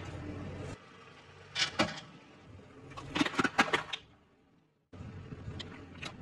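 Plastic objects cracking and crunching under a slowly rolling car tyre, in two short bursts of sharp crackles about two and three seconds in. After a brief silence near the end come scattered small pops and ticks as soft water beads are squashed.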